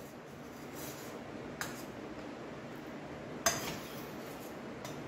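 A metal ladle clinking a few times against a steel pot and a plate as boiled drumstick pieces are lifted out, the sharpest clink, with a brief ring, about three and a half seconds in. A steady faint hiss lies under it.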